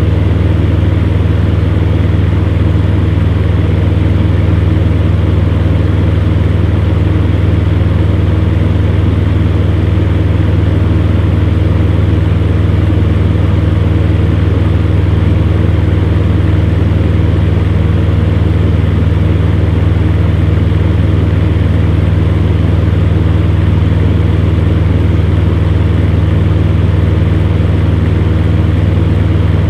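Electric fan running steadily, a constant low hum with a whooshing air noise and no change in speed.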